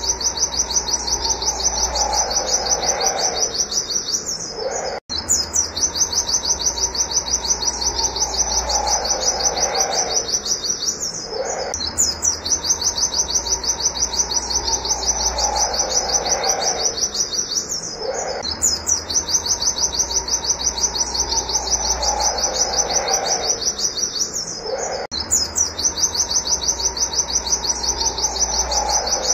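White-eye (pleci) singing a fast, high run of repeated 'wit wit' notes. The song comes in near-identical cycles of about seven seconds, broken by short gaps, and each cycle carries a lower falling call.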